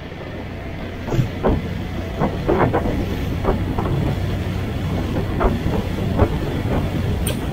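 Small fishing boat underway, its outboard motor running steadily under irregular knocks and slaps of the hull against the chop.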